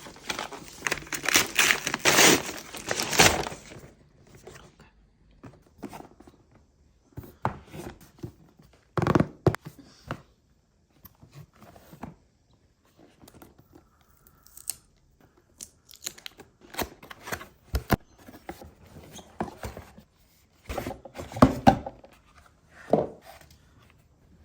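Packaging being torn open and handled. A few seconds of continuous tearing and crinkling are followed by scattered short rustles, taps and clicks as the box and its contents are handled.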